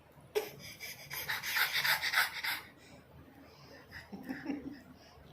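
A small child panting rapidly in imitation of a puppy, quick breathy puffs at about five a second for about two seconds.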